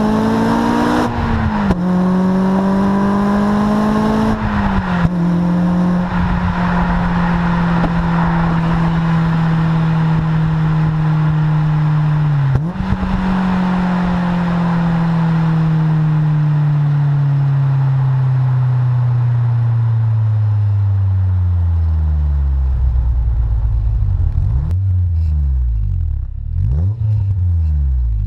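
Honda S2000's four-cylinder engine through its Supersprint aftermarket exhaust, accelerating with two quick upshifts in the first few seconds, then the exhaust note holding and sinking slowly in pitch as the car slows. Near the end come several quick rises and falls in engine pitch.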